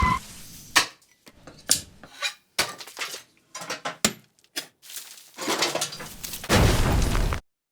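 A quick, uneven string of short clinks and clatters like dishes, cutlery and glass, with abrupt gaps between them, then a longer rush of clattering noise near the end that cuts off suddenly.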